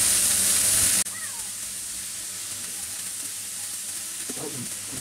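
Shredded cabbage and mixed vegetables sizzling as they are stir-fried in a pan; about a second in the sizzle drops abruptly to a much quieter hiss.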